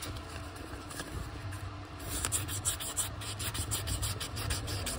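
600-grit sandpaper rubbed by hand in circular strokes around a metal brake caliper piston, scrubbing off rust and pitting. The scratching picks up about two seconds in, several quick strokes a second, over a steady low hum.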